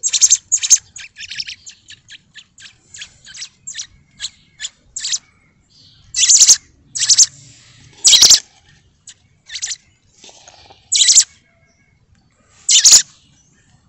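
Fledgling songbird begging for food while being hand-fed: sharp, high chirps, a quick run of about four a second at first, then louder single and paired chirps a second or two apart.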